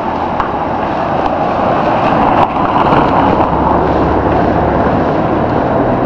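Steady street traffic noise with a low rumble, swelling slightly about two seconds in, and one sharp click about two and a half seconds in.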